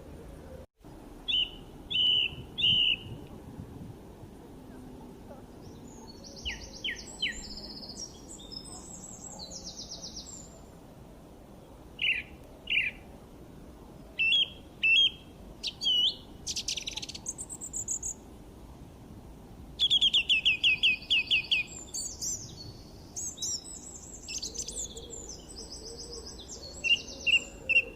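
Small birds chirping and singing, with many short high calls and phrases from more than one kind of bird, including a fast run of repeated notes about two-thirds of the way through.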